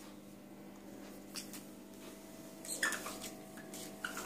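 A cat reaching up and pawing at a wooden door, with a few brief scuffing sounds; the loudest comes about three seconds in. A steady low hum runs underneath.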